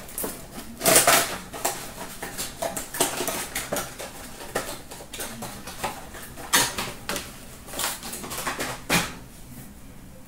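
Foil trading-card packs and their wrappers crinkling and rustling as they are handled and opened, in irregular sharp crackles with louder ones about a second in, past the middle, and near the end.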